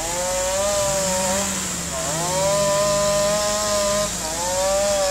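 Chainsaw running at high revs, cutting through the wood of a fallen banyan tree; its engine note sags briefly and climbs back about three times.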